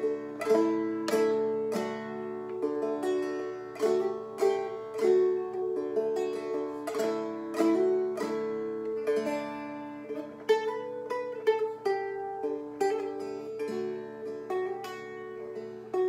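Seagull Merlin M4 spruce stick dulcimer, tuned D-A-D, strummed in a steady pattern of a little under two strums a second, a melody changing on the fretted string over steady drone notes from the open strings.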